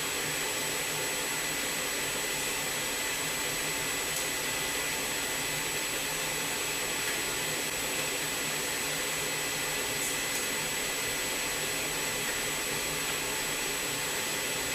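CNC vertical machining center running: a steady whirring hiss with a constant high whine.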